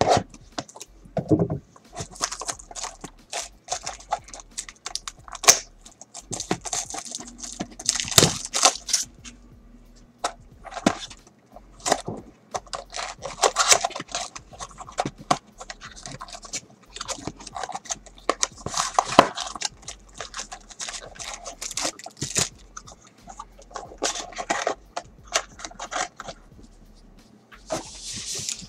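A cardboard trading-card box being torn open by hand and a foil card pack handled: irregular tearing, scraping and crinkling with sharp crackles.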